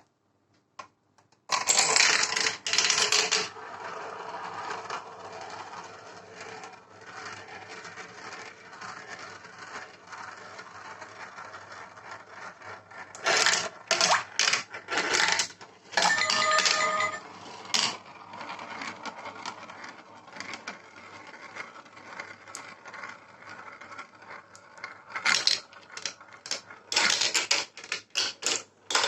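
Marbles rolling down a plastic marble-run track, a steady rolling rattle broken by loud bursts of rapid clacking as they drop through and strike the pieces. About 16 seconds in, a short electronic tone sounds from one of the track's sound-effect pieces.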